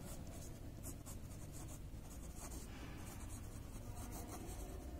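Pen writing on ruled notebook paper: faint scratching of short pen strokes as words are written out.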